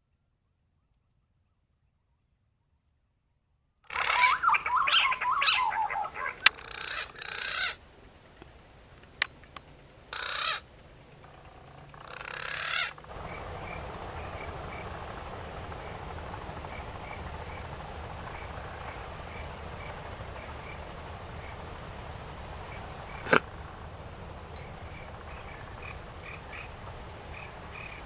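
Silence, then several seconds of loud, irregular close-up noise with sharp knocks. After that comes steady forest ambience: a constant high insect drone with faint, repeated short chirps and one sharp click near the end.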